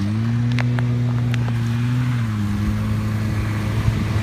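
Snowmobile engine running steadily as it tows a banana boat over snow, its pitch dropping a little about two seconds in.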